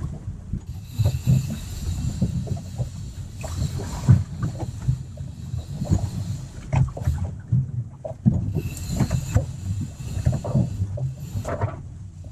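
Water slapping and sloshing against the hull of a small fishing boat rocking in a choppy sea, with irregular low thumps and occasional sharper knocks.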